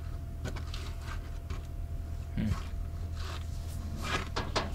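Scattered small clicks and scrapes of a screwdriver and hands working on an inverter's terminal screws, with a cluster of quick clicks near the end. Under them runs a steady low hum.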